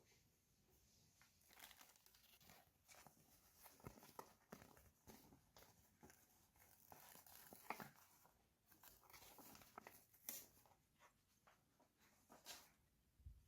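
Faint crinkling and rustling of toy packaging being handled, with scattered small clicks and taps at irregular intervals.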